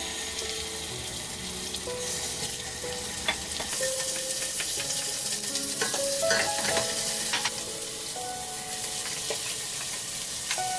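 Meat sizzling as it fries in hot oil in a stainless steel pot, with a wooden spoon clicking and scraping against the pot as it is stirred.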